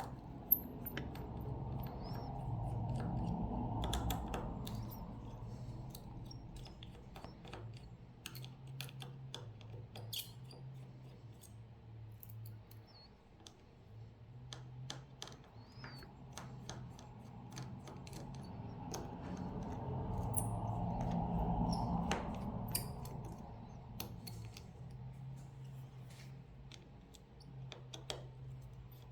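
Small clicks, taps and scrapes of hand tools on smartphone parts during disassembly, scattered irregularly. Twice a low rushing noise swells up and fades, once near the start and once about two-thirds of the way through, over a faint steady hum.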